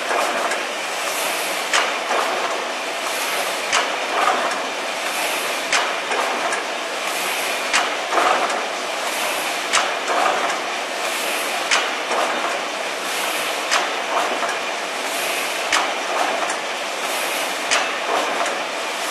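Pasquato automatic sheet-cutting machine running steadily, with a sharp cutting stroke about every two seconds, some thirty cuts a minute.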